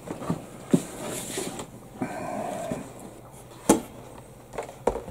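Cardboard lid of a large model-kit box being slid off and set down: rustling and scraping of cardboard with three sharp knocks.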